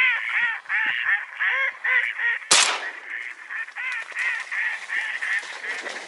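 A flock of geese calling overhead, many short calls overlapping, with a single shotgun shot about two and a half seconds in.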